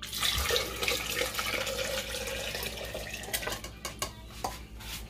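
Chicken broth poured from a bowl into a blender jar, splashing steadily for about three seconds, then a few light knocks.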